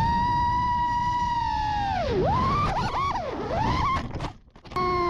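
FPV quadcopter's brushless motors whining, the pitch holding steady and then swooping down and up several times as the throttle changes. The sound drops out briefly near the end.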